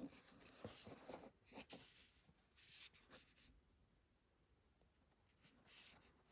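Faint rustling and scraping of paper and cardboard as a hardback book is unpacked and handled, in irregular bursts over the first few seconds and again near the end, closing with a light knock.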